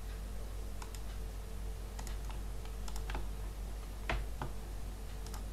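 Scattered, irregular clicks of a computer keyboard and mouse, about eight in all, the sharpest about four seconds in, over a steady low electrical hum.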